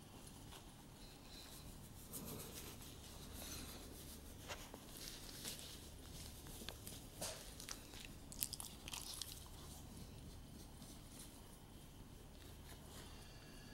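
Faint rustling and soft clicks as a small Brussels Griffon dog moves about and nuzzles into a knit sweater, with one sharper click about eight seconds in. A low steady hum runs underneath.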